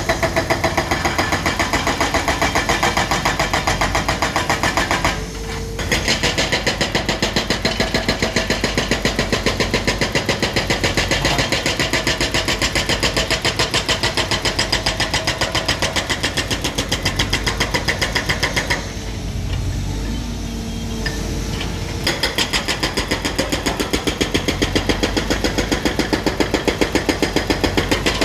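Excavator-mounted hydraulic breaker hammering pavement in rapid, evenly spaced blows over a diesel engine's running. It stops briefly about five seconds in and again for a few seconds past the middle, leaving only the engine.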